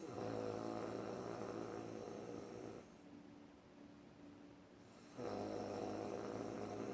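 A woman snoring: one snore of nearly three seconds, then a second starting about five seconds in.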